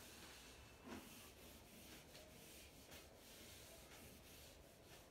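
Faint rubbing of a duster wiping a whiteboard in repeated, irregular strokes, with one soft bump about a second in.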